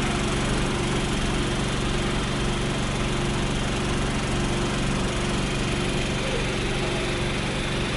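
Small engine-driven water pump running steadily at a constant speed, pumping floodwater out through a hose.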